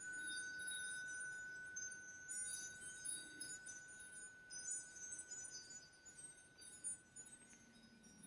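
Faint, high tinkling of chime-like metallic tones over one steady, held high tone, fading away near the end.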